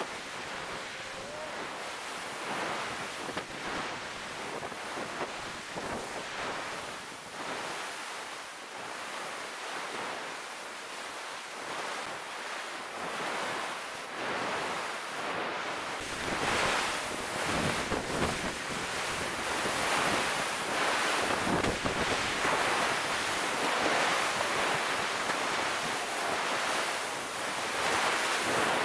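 Ocean surf washing onto a sandy beach in a steady rush, with wind buffeting the microphone; it grows louder about halfway through.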